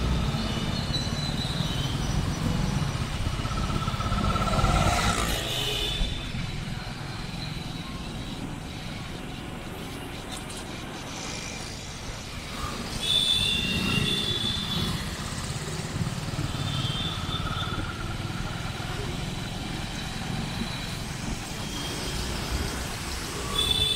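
City road traffic heard from a moving vehicle: a continuous rumble of engines and tyres, with several short vehicle horn honks every few seconds.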